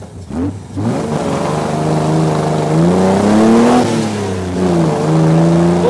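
Austin-Healey 3000 MkI's straight-six engine pulling away hard under acceleration. The revs climb sharply twice in the first second, hold, rise again to a peak around the middle, then drop back and settle.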